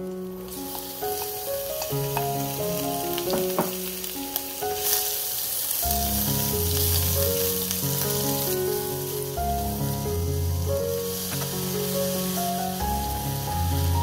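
Garlic, dried chilli and shrimp sizzling in hot oil in a frying pan while being stirred with a wooden spatula, over background music.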